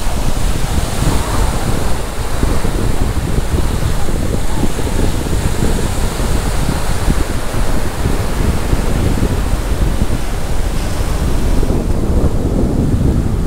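Wind buffeting the microphone with a loud, fluttering rumble over the steady wash of surf on a sandy beach.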